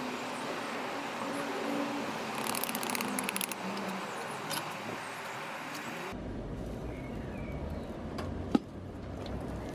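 A melting furnace runs with a steady rushing noise, and a steel rod clinks and scrapes as it skims dross off molten aluminium in a crucible. The sound changes abruptly about six seconds in to a duller, lower rumble, and a single sharp knock comes near the end.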